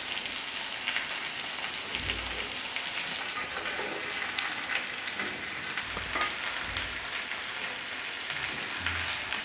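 Fried chicken pieces sizzling in a frying pan of spice paste as they are laid in with tongs. The sizzle is a steady crackling hiss.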